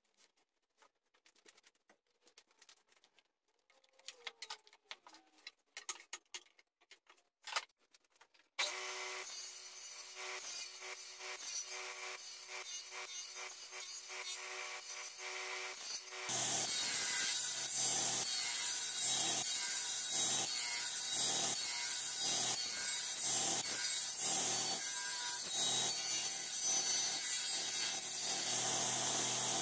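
Light clicks and handling noises, then about nine seconds in a table saw starts and runs steadily. From about sixteen seconds in it gets much louder as the blade cuts a box joint slot through a spotted gum board clamped upright in a jig.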